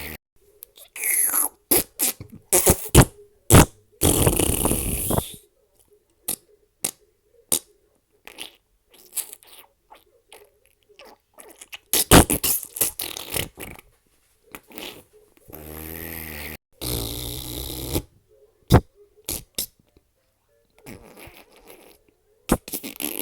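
A rapid series of fart sound effects, some short and sharp, some longer and rumbling, separated by brief silent gaps.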